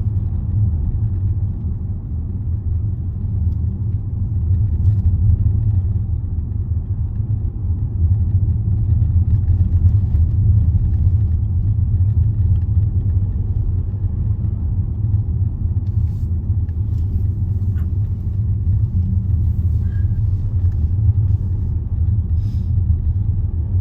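Steady low road and engine rumble inside the cabin of a Range Rover driving along a narrow country road.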